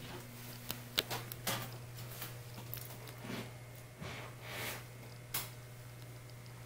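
Scattered light clicks and short rustles over a steady low hum.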